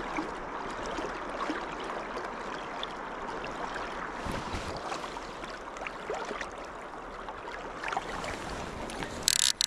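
River water running steadily around the angler. Near the end a sudden, much louder rush of noise cuts in.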